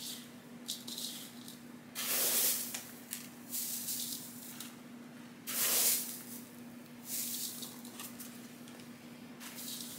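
Perlite poured from a plastic bowl into gritty cactus potting mix, with a hand stirring through the mix. There are two louder hissing rushes, about two seconds and five and a half seconds in, and lighter rustling and scrunching in between.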